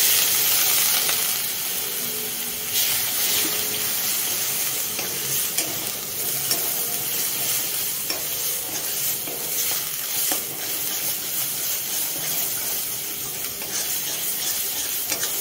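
A splash of water hitting spiced onion masala in a hot kadai: a sudden loud sizzle and hiss of steam, strongest for the first two or three seconds. Then a steady frying sizzle, with a metal spatula scraping and clicking against the pan as the masala is stirred.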